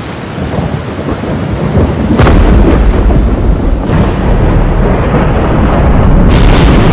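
Thunderstorm sound effect: heavy rain with rolling thunder, swelling in at first. A thunderclap cracks about two seconds in and sets off a long low rumble, and a second crack comes near the end.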